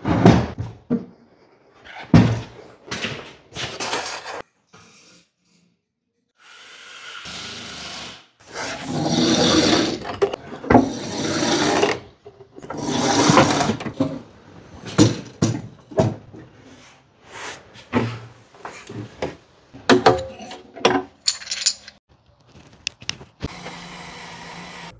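Hands-on install work: a run of knocks and clicks from tools and parts being handled, with several stretches of a few seconds of rough scraping or rasping.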